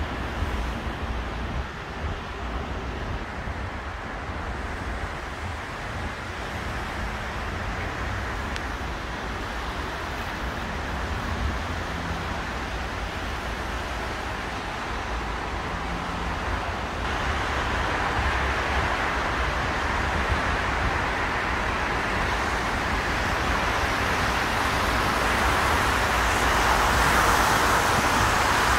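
Steady noise of highway traffic on rain-wet roads: a hiss of tyres over a low rumble, growing louder in the second half.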